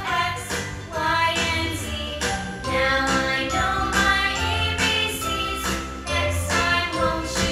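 Background music with singing over a steady beat.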